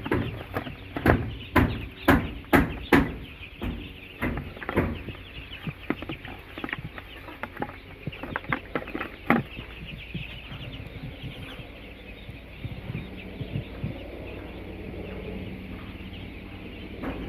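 A crowd of baby chicks cheeping constantly, many short high chirps overlapping. In the first few seconds there is a run of sharp knocks, louder than the chicks.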